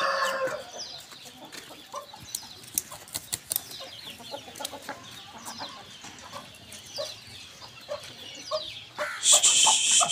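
Chickens clucking around a yard, with many short high chirps and clicks, and a louder high rasping sound about nine seconds in.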